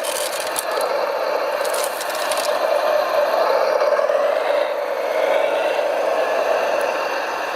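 Scale RC construction machine running: a steady motor-and-gear whir, with rattling clatter near the start and again about two seconds in.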